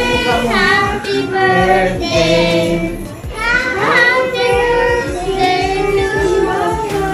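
Children's high voices singing, with held and sliding notes, over background music.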